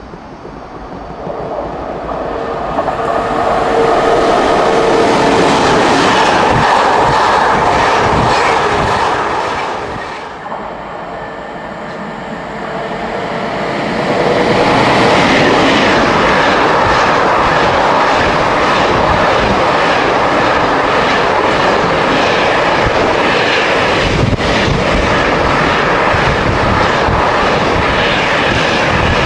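Class 88 locomotive hauling an intermodal container freight train past at speed. It grows loud as it approaches, eases briefly, then the locomotive and the long rake of container wagons run by steadily with wheel clatter on the rails through the second half.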